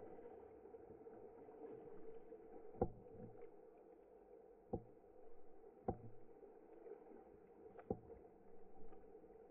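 Faint, muffled pool water lapping against a camera at the water's surface, with four sharp taps spaced one to two seconds apart.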